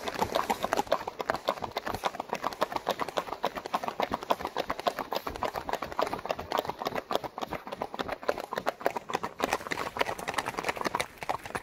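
Hoofbeats of a Tennessee Walking Horse mare: a quick, even run of closely spaced clip-clops.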